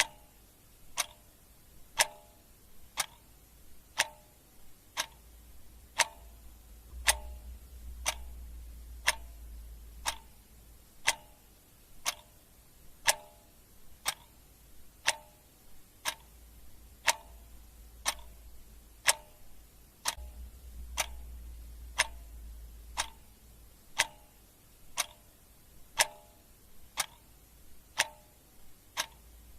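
Clock ticking steadily, one tick a second, the ticks alternating stronger and weaker in a tick-tock.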